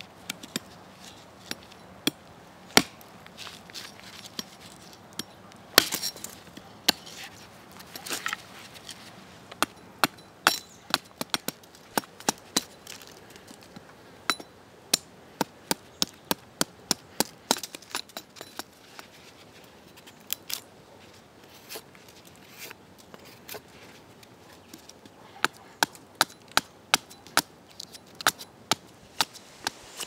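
Machete blade chopping into and splitting a dry wooden stick held on a stump: a long series of sharp, irregular chops, single strikes alternating with runs of several quick strokes.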